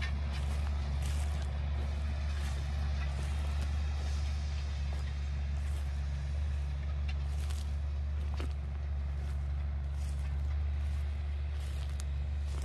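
Distant tractor's diesel engine running steadily under load as it pulls a seed drill across the field, heard as an even low drone.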